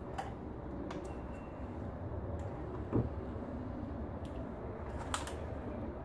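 A few light clicks and a dull knock from the plastic housing of a car door lock actuator being handled and turned over in the hands, with a sharp click a little after five seconds. A steady low rumble runs underneath.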